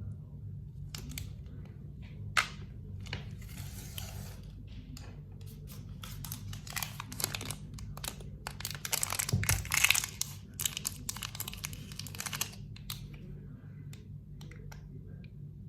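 Packaging being torn open and crinkled: irregular rustling and ripping that grows busiest and loudest about nine to ten seconds in, with a single sharp click a couple of seconds in, over a steady low hum.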